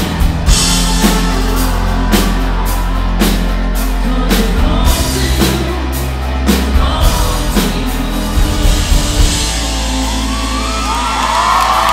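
Live rock band playing the close of a song, with singing and steady drum-kit hits over a sustained bass. In the last couple of seconds the drumming stops and a crowd's whoops and cheers swell up.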